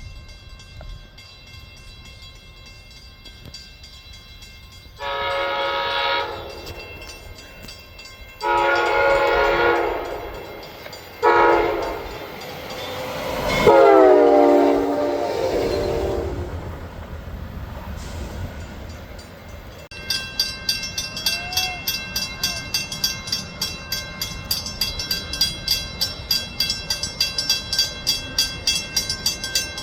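Train horn sounding the grade-crossing signal of two long blasts, one short and one long, with the pitch dropping during the last blast as the train passes. From about two-thirds in, a steady rhythmic clicking of the passing train's wheels on the rails, two to three beats a second.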